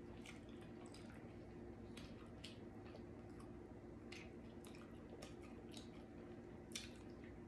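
Wet smacking and chewing of sauced barbecue rib tips, a scattering of short wet clicks and squishes, over a faint steady hum.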